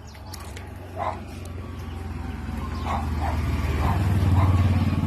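A dog barks a few times, short single barks spread through the clip, while a motor engine drones underneath. The engine grows steadily louder as it draws near and is loudest near the end.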